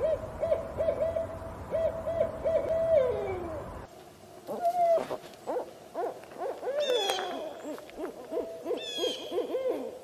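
Owl hooting: a quick run of short hoots ending in a falling note. About four seconds in, a different stretch follows with scattered hoots and a few higher, gliding calls.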